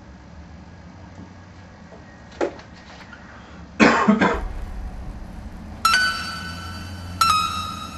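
A person coughs: a short cough-like burst, then a louder one about four seconds in. From about six seconds in, music starts: a plucked note that rings and repeats about every second and a half.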